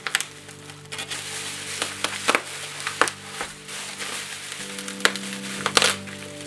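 Plastic bubble wrap crinkling and crackling as it is unwrapped by hand, with a few sharper crackles, the loudest near the end. Soft background music with long held notes plays underneath.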